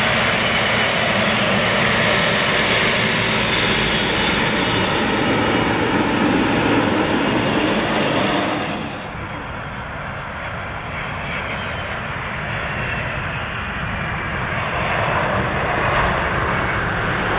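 Boeing 777-300ER's twin GE90 jet engines running loud as the airliner rolls past on the runway, a dense rush with a high whine. About nine seconds in the sound cuts to another jet airliner, a Boeing 767, quieter and duller at first and growing louder toward the end as it rolls down the runway.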